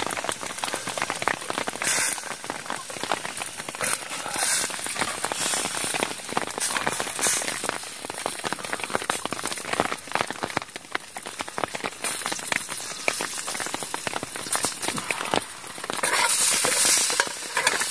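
Heavy rain falling on a tent in a dense, steady patter, with onions sizzling in hot oil in a pan; the patter swells louder in the last two seconds.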